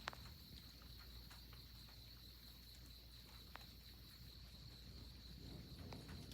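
Faint, steady chorus of night insects, a constant high-pitched trill, with a few faint clicks.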